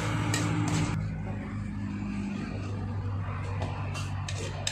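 A steady low engine hum runs throughout. A metal ladle scrapes against the wok a few times in the first second.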